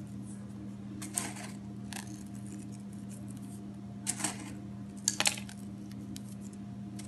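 Decorating sugar sprinkles scattered by hand over cake batter in a metal tin, giving a few short light clicks and rattles over a steady low electrical hum.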